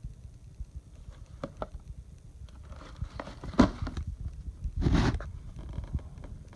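Cardboard shoebox being handled and tilted: rubbing, rustling and light knocks, with a sharp knock about three and a half seconds in and a half-second scrape about five seconds in.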